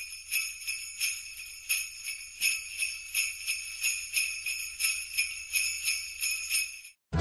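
Jingle bells shaken in a steady rhythm, about two to three shakes a second, stopping abruptly near the end.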